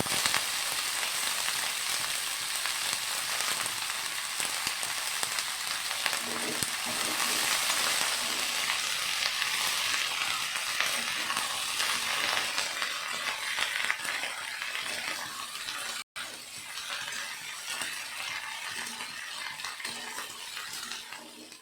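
Potatoes and chopped green beans frying in hot oil in a pan, a steady sizzle.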